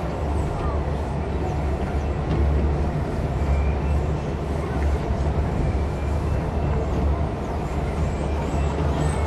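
Steady low rumble and wind noise of a Von Roll skyride gondola cabin travelling along its haul cable. Faint high chirps come and go.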